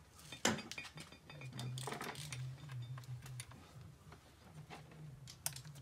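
Small metallic clicks and taps of a Phillips screwdriver and battery bolts as a motorcycle battery's terminals are screwed down, over a low hum.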